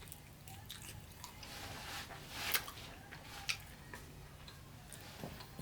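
Close-miked eating sounds from a mukbang of buffalo wings: small wet squishing and clicking mouth and food noises, with one louder sharp sound about two and a half seconds in.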